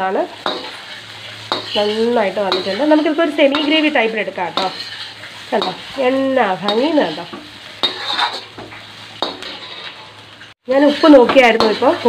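Steel spatula stirring and tossing sauce-coated fried cauliflower in an iron wok, scraping the pan with repeated squeaky metal scrapes and occasional knocks while the food sizzles over a high flame.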